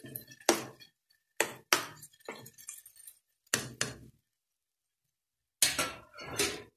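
A metal spoon clinking and scraping against a metal wok while stirring a thick mung-bean and sardine mix, in a string of separate sharp clinks. Near the end comes a closer clatter as the spoon is set down.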